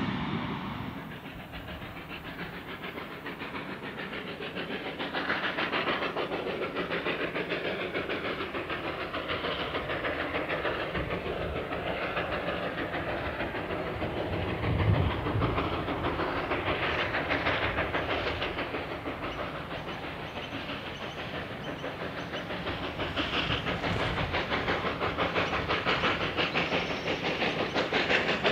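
North British-built Hudson steam locomotive R711 working hard as it approaches, its exhaust beating rapidly over a steady hiss of steam, growing louder toward the end. A brief low thump about halfway through.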